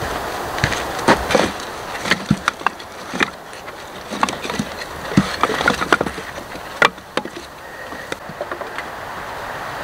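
Cut wooden branches knocking and clattering against each other as they are handled and stacked by hand, in a string of irregular sharp wooden knocks.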